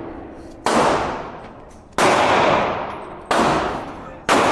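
Four gunshots fired at a steady pace, roughly one every second to second and a half, each a sharp crack followed by a long echoing tail.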